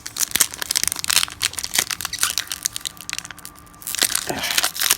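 Wrapper of a 1999 Fleer Ultra baseball card pack crinkling and tearing as it is opened by hand: a dense run of sharp crackles, with a longer tear about four seconds in.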